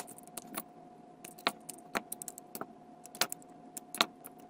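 Plastic LEGO bricks of the 7313 Red Planet Protector mech clicking and tapping as they are pulled apart, snapped together and set down on the table, in irregular sharp clicks, the loudest about three and four seconds in. A faint steady hum runs underneath.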